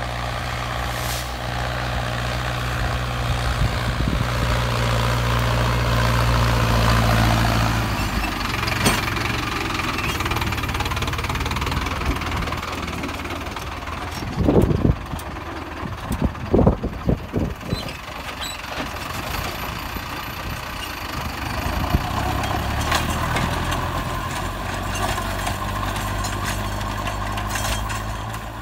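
Mahindra 605 Di-i tractor's diesel engine running steadily under load while it drives a gyrovator rotary tiller through dry soil, loudest about seven seconds in. A few loud, irregular rumbles break in around the middle.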